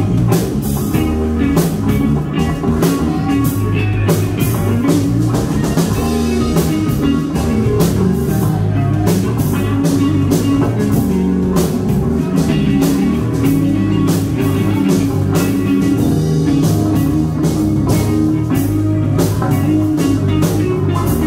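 Live rock band jamming in B: electric guitars over a drum kit, with a steady bass line and regular drum and cymbal hits throughout.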